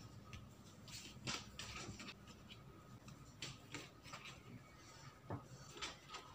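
Faint soft rubbing and light taps of hands braiding soft bread dough on a plastic mat, with a faint steady hum underneath.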